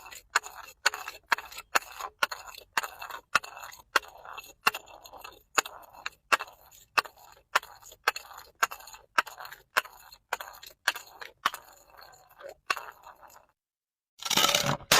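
Sharp cracking clicks, about two a second, each with a short crackle, stopping about 13 seconds in. After a moment's silence, a loud burst of crunching, shattering glass starts near the end.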